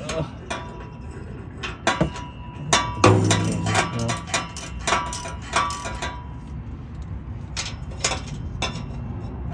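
Ratchet wrench clicking and metal tools clinking on the exhaust flange bolts under a car, in irregular runs of sharp clicks with a faint metallic ring, as the bolts holding the midpipe to the downpipe are worked loose.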